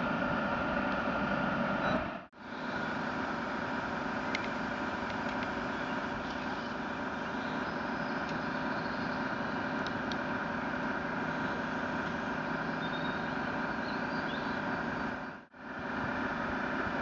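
Steady engine-like drone with several held tones, from an RC model work boat. It cuts out briefly twice, about two seconds in and again near the end.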